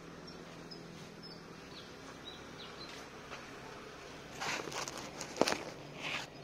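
Faint outdoor background with scattered short high chirps. About four seconds in, rustling bursts and one sharp knock come as the phone recording is grabbed and handled.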